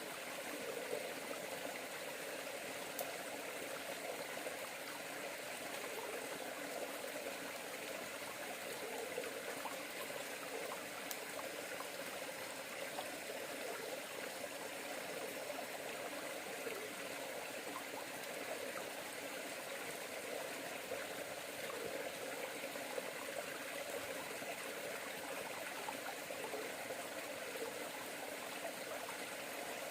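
River water flowing steadily, a constant rushing with a faint trickle.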